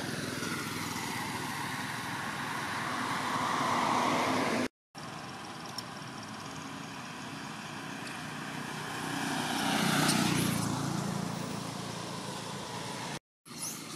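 Motor vehicles passing on a road, the noise swelling and fading as one goes by about four seconds in and another about ten seconds in. The sound drops out briefly twice.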